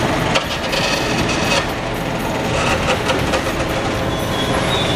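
Hydraulic demolition crusher biting into a reinforced concrete slab: constant crunching and cracking of concrete with falling rubble and scraping metal, and a high steady metallic squeal starting near the end.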